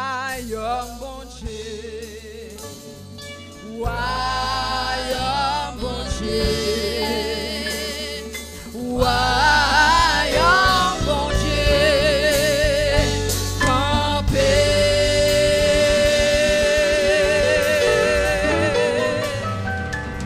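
A woman singing a gospel song in Haitian Creole into a microphone over backing music, her voice wavering on long held notes; it gets louder about four seconds in and again about nine seconds in, ending on a note held for about five seconds.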